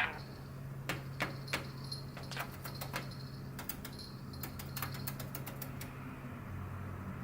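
Budgerigar making scattered small, sharp clicks and ticks at irregular intervals, with a steady low hum underneath.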